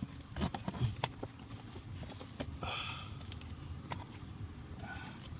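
Scattered light clicks and knocks of plastic trim being handled as the lower dashboard panel under the steering column is worked loose, with a short breathy hiss about halfway through.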